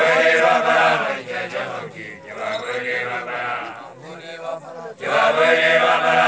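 A young man's loud chanted recitation, a Basotho initiation graduate declaiming in three long phrases with held, wavering notes.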